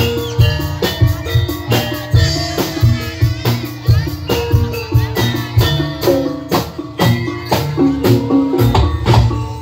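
Jaranan senterewe music from a gamelan-style ensemble: rapid, closely spaced drum strokes over struck metal percussion ringing short pitched notes, with deep drum notes underneath.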